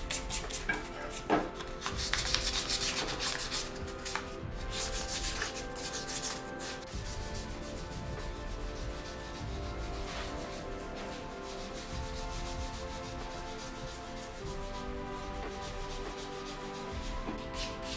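Hand sanding: a folded sheet of sandpaper rubbed back and forth over a small metal vase in quick scratchy strokes. The strokes are louder in the first several seconds and then go on more softly.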